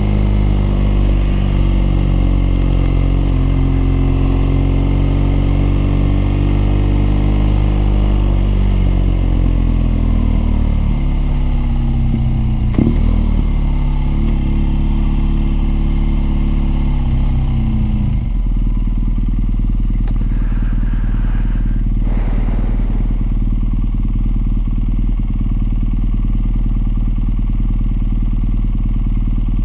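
BMW R nineT's air/oil-cooled boxer twin running steadily under way, then its engine note falling over several seconds as the bike slows, settling to a steady idle about eighteen seconds in.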